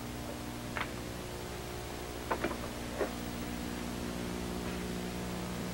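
Steady hum and hiss from an old, worn film soundtrack, with a few soft clicks about a second in and again around two and a half and three seconds in.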